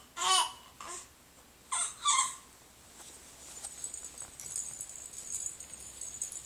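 Three short, high-pitched, wavering vocal squeals in the first couple of seconds. About three seconds in, a steady, high, flickering buzz comes up and runs on.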